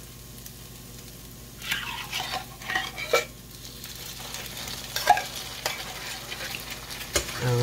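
Chicken pieces sizzling in butter in a frying pan. Canned condensed cream of chicken soup is scraped out of its can into the pan with a knife, making several short scraping strokes and a sharp metal click about five seconds in.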